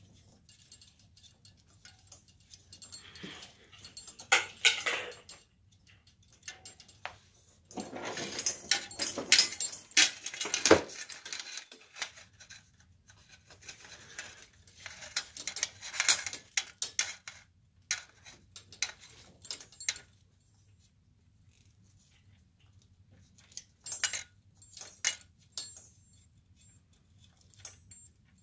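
Bursts of handling noise from a chandelier's metal arm, socket and candle cup: rustling and scraping with small metal clicks and clinks as electrical wire is pulled through, with quiet gaps between.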